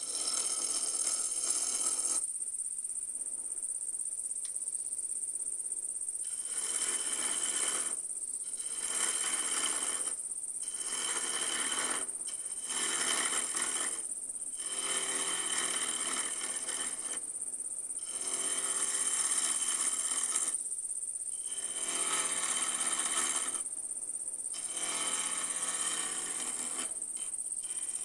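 Carbide turning tool cutting a spinning Bois d'Arc (osage orange) blank on a wood lathe, in repeated passes of one to three seconds with short breaks between them, over a steady high-pitched whine.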